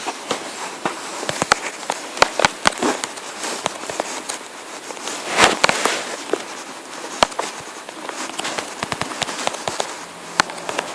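Irregular sharp clicks and crackles, several a second, over a steady hiss, with a denser rustling burst about halfway through.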